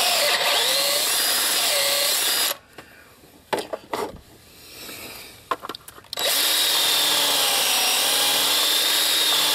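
Power drill with a 13/32 in. bit drilling out a stripped bolt hole in a metal engine-mount bracket for a Heli-Coil insert, the motor whining steadily with its pitch wavering slightly under load. It stops about two and a half seconds in, a few light clicks and knocks follow as the bit is lifted out, and it starts drilling again about six seconds in.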